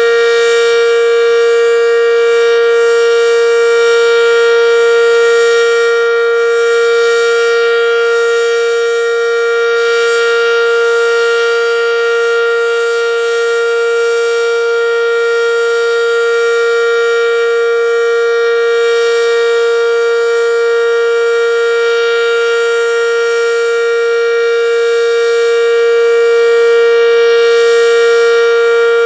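Werden Electric B-115, a single-tone omnidirectional outdoor warning siren, sounding one loud, steady tone at full speed during a siren test.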